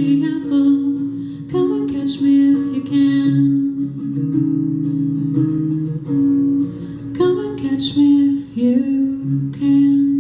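Strummed acoustic guitar with a woman singing the final refrain of a folk-pop song.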